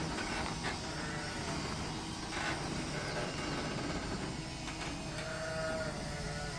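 Sheep bleating faintly, with a longer call about five seconds in, over a steady low hum.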